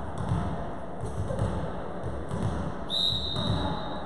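A volleyball bounced on a wooden gym floor, thudding about twice a second. About three seconds in, one long referee's whistle blast sounds, the signal to serve.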